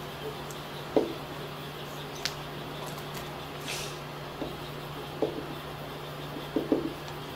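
Dry-erase marker writing on a whiteboard: a few faint, scattered squeaks and taps over a steady low hum.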